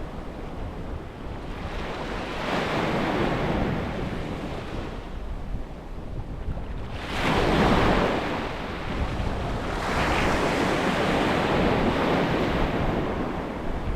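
Sea waves breaking and washing up a beach in several surges, the loudest about seven seconds in, over a steady low rumble of wind on the microphone.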